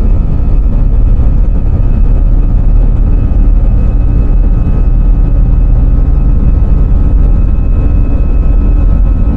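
Airliner engines at takeoff power: a loud, steady rumble with a steady high whine on top.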